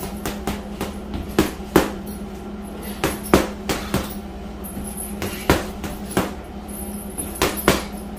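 8-ounce Venum boxing gloves punching an Everlast heavy bag: a run of sharp thuds at an uneven pace, about two a second, often in quick pairs.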